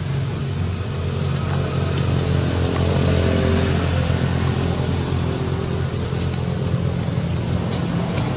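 A steady low engine hum with an even hiss, from a motor vehicle running nearby.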